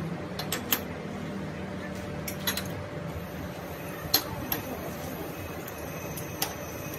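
Sharp metallic clinks and taps as steel parts of a metal lathe's chuck and tooling are handled, about eight in all, over a low machine hum that stops a little under three seconds in.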